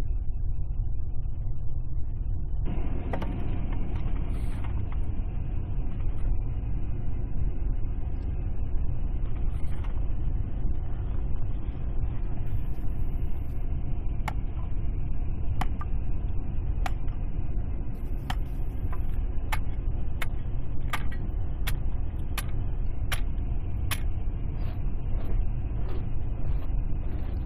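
Axe blows splitting birch logs on a chopping block, a sharp knock about every second, over a steady low rumble.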